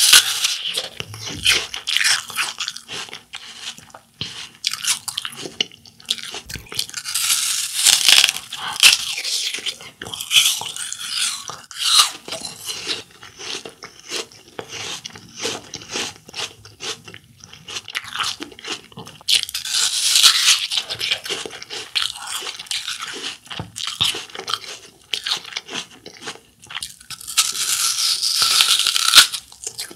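Crisp raw apple being bitten and chewed: a few loud crunchy bites, near the start, about a quarter of the way in, about two-thirds in and near the end, with steady crunchy chewing in between.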